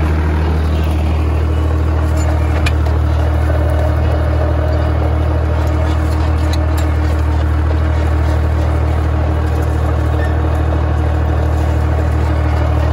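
Small tracked vineyard tractor's engine running steadily at a constant speed as it drives along a vine row, pulling a hydraulic under-row cultivator through the soil.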